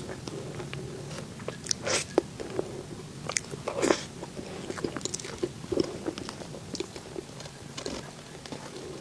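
Close-miked eating of cake and desserts: irregular bites and chewing with many small mouth clicks, the loudest bites about two and four seconds in.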